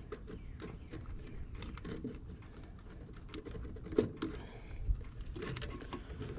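Light clicks and rustling of wires and a circuit board being handled, as spade connectors are moved from an old heat pump defrost board to a new one, with a sharper click about four seconds in.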